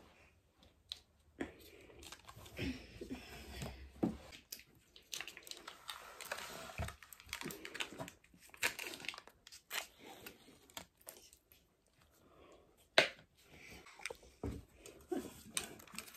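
Peel-off lids being torn from small plastic sauce dip pots, with crinkling and tearing, and scattered clicks and knocks of packaging and containers on the table. A single sharper knock comes about three-quarters of the way through.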